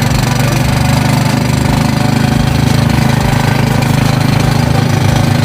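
Motorcycle engine of a passenger tricycle running steadily, a loud, even, low drone.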